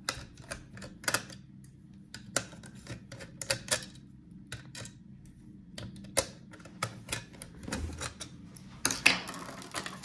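Small screwdriver working the screws of a laptop's drive-bay cover: light, irregular clicks and ticks of metal on screw and plastic. A denser rattle of handling comes about nine seconds in as the cover is lifted off.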